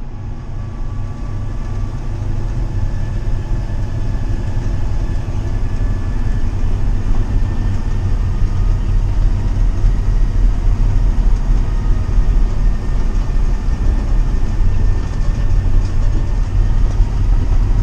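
Steady low engine and road rumble of a moving motor vehicle, heard from inside the cab, building a little over the first couple of seconds.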